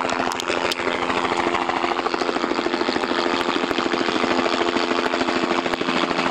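Small helicopter hovering low overhead as it comes in to land: rotor blades beating in a rapid, even chop over a steady engine drone.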